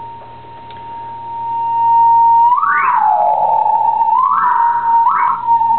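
A steady whistle-like tone of about 1 kHz coming through an opened Ibanez AD80 delay pedal. About halfway through it swoops up, slides well down, then jumps up and holds before settling back with a wobble, sounding like a theremin. The pitch bends are the pedal's fault showing: breath on its circuit board upsets the signal, which the repairer puts down to leakage at the FET switch gates and means to cure with a clear coat.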